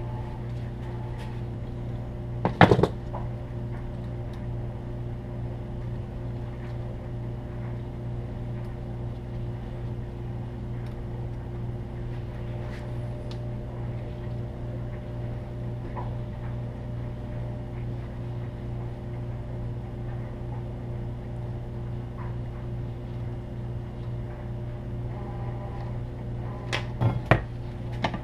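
Steady low hum throughout, with sharp metal clanks of tools and winch motor parts being handled on the bench: one about two and a half seconds in, and a quick cluster near the end.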